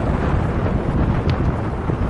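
Wind buffeting the microphone of a camera on a moving bicycle: a loud, gusty low rumble, with a faint tick about a second in.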